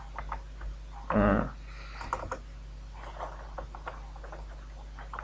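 Computer keyboard typing: a run of key clicks through the second half. A brief voice sound about a second in, over a steady low electrical hum.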